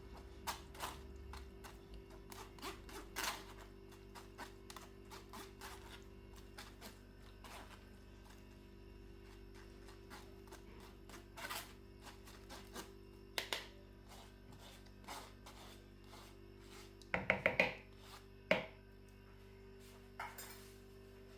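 Kitchen handling noises: scattered light knocks and clicks over a faint steady hum, with a quick run of louder knocks about seventeen seconds in.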